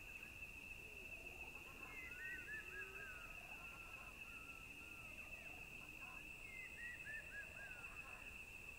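Faint natural ambience: a steady, wavering high insect trill throughout, with two short bouts of bird chirps, about two seconds in and again near seven seconds.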